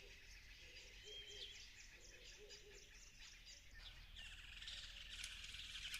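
Faint bird calls: high chirps and a repeating low call, with a denser high trill from about four seconds in.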